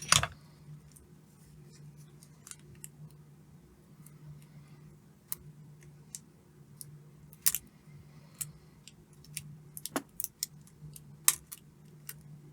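Scattered light clicks and taps of metal tweezers and soldering iron being handled over a circuit board during soldering, with a loud click right at the start and a few sharper ones in the second half, over a steady low hum.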